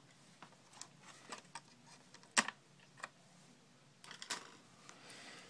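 Small scattered clicks of laptop RAM sticks being released from their spring-latched memory slots and pulled out, with one sharper click about two and a half seconds in and a few more near four seconds.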